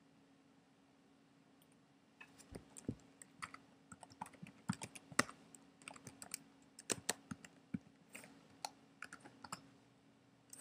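Typing on a computer keyboard: a run of irregular key taps for several seconds, starting about two seconds in.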